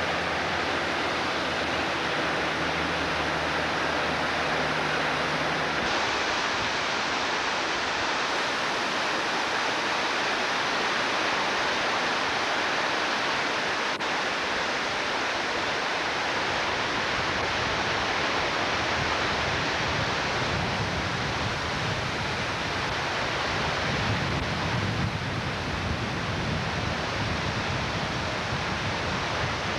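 Peshastin Creek in flood, its water rushing in a steady, unbroken wash of noise. A low hum runs under it for the first six seconds and stops suddenly.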